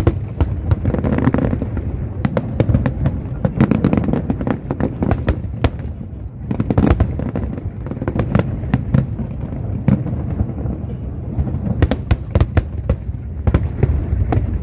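Fireworks display: a rapid, irregular run of sharp bangs and crackles over a continuous low rumble.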